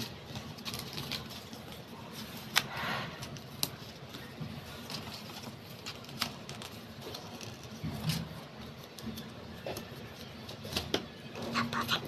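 Paper sticker sheet and plastic binder pages being handled, with stickers peeled off: scattered soft rustles and light clicks, a few sharper ones around a third of the way in and near the end.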